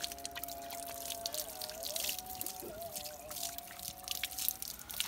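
Water splashing and dripping as a large dog is washed, with many short, irregular splashes. Beneath them runs a steady tone that wavers now and then.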